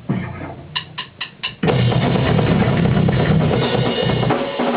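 Four evenly spaced stick clicks as a count-in, then a drum kit comes in loud with full, dense playing that eases off near the end.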